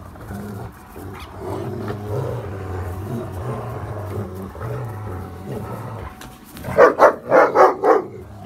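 German Shepherds growling steadily in play while tugging on a rope toy, then a quick run of about five loud barks near the end.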